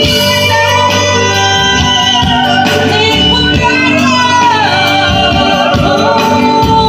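A voice singing into a microphone over instrumental backing, holding long notes with a falling phrase about four seconds in.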